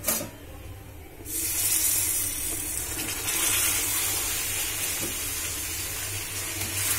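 Boiled raw-mango pieces tipped into hot jaggery syrup in a metal wok. The syrup sizzles and hisses as the wet fruit hits it, starting suddenly about a second in and going on steadily.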